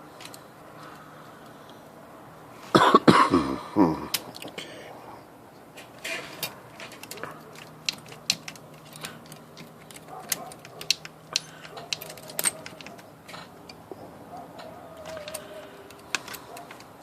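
A cough about three seconds in, then a run of small sharp metallic clicks and taps from the IBM Selectric's mechanism as the cycle operational shaft is worked loose and pulled out.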